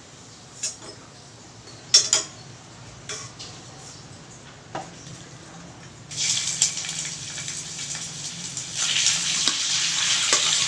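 A metal spatula clicks against a stainless frying pan a few times. About six seconds in, raw pork pieces slide off a plate into the hot oil and fried garlic and start sizzling, and the sizzle gets louder as more meat goes in.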